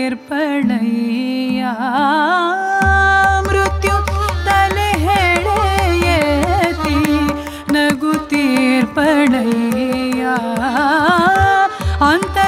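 Carnatic vocal music: a woman sings heavily ornamented, sliding notes, shadowed by violin, while a mridangam joins in with quick strokes about three seconds in.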